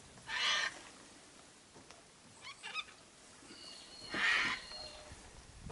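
Two short splashes of water as a golden perch is released over the side of a boat, one near the start and one about four seconds in. Bird calls sound between and over the splashes.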